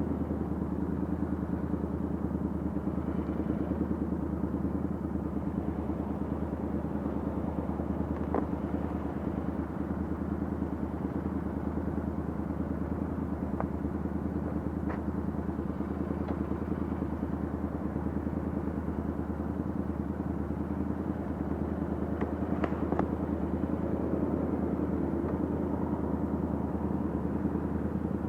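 Royal Enfield 650 parallel-twin with a Diablo aftermarket exhaust idling steadily at an even, unchanging pitch, with a few faint sharp clicks scattered through.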